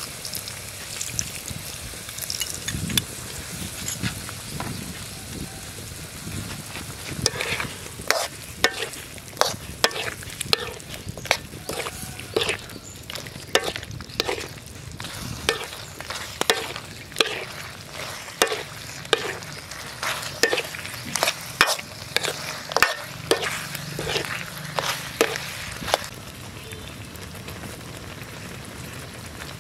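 Pork, bell peppers and onion sizzling in a wok, with a metal ladle knocking and scraping against the wok over and over, a little under twice a second, from several seconds in until near the end. After that only the steady sizzle goes on.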